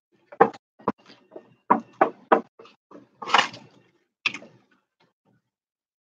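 Hands handling a latex balloon on a plastic bucket lid: a string of short knocks and taps, with a brief scuffing sound a little past three seconds in, then quiet.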